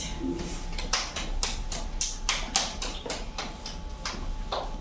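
Irregular sharp taps and clicks, about three a second, over a faint steady tone.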